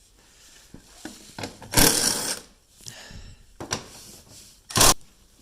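A tool working the 10 mm bolts that hold a car headlight in place: two short mechanical bursts, one about two seconds in and a sharper one near the end, with scattered clicks between.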